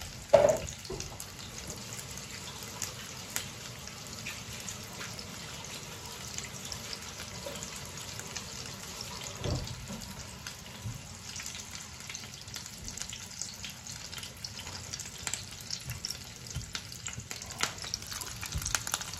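Venison or elk burger patties searing in hot oil in a cast-iron skillet: a steady sizzle with frequent small crackles and pops. This snap and crackle is how the pan's heat is judged, a sign that the oil is hot enough for a sear. One brief louder knock comes just after the start.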